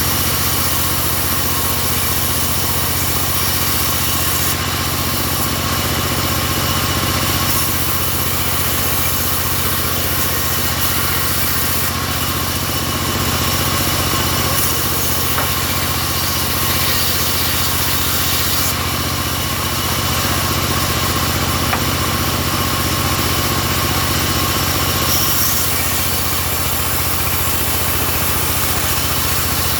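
Engine of a home-built bandsaw sawmill running steadily at an even speed.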